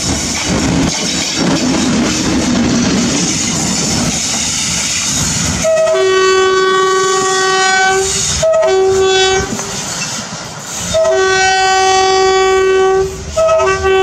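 Pakistan Railways RGE20 diesel-electric locomotive running light toward the listener, its engine and wheels on the track making a steady rumble. About six seconds in it sounds its multi-tone air horn in four blasts: long, short, long, short.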